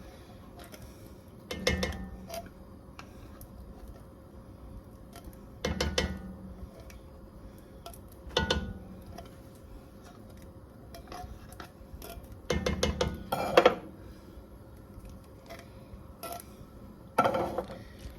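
A metal utensil clattering and scraping against a pot in five short bursts while the chicken and stuffing mixture is stirred. The loudest clank comes about two-thirds of the way through.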